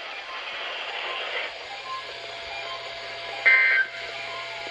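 Weather radio receiver hissing with static, then about 3.5 seconds in a short, loud burst of warbling SAME digital data tones: the end-of-message code that closes the NOAA Weather Radio Required Weekly Test.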